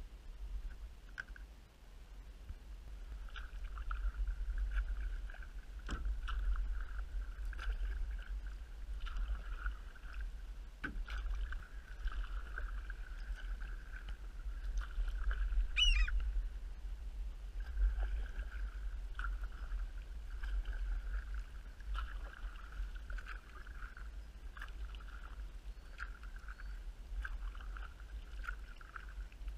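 Kayak paddling heard through a GoPro: a steady low rumble with paddle splashes and drips every second or two. A single short, high bird call comes about halfway through.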